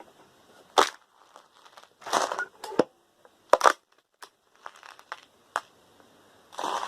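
Loose metal screws clattering and clinking in about six short, irregular bursts as a magnet is worked through a pile of them, sorting the magnetic screws from the stainless ones.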